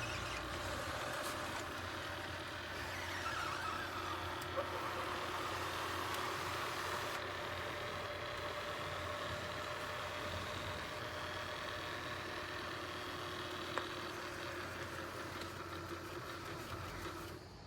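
Ultenic D10 robot vacuum running steadily on its way back to the charging dock, a motor hum with a faint whine and an odd light tick.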